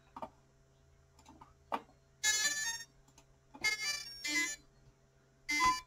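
A few faint clicks, then short electronic chimes of several bright notes: one about two seconds in, two close together around four seconds, and another near the end, over a faint steady hum.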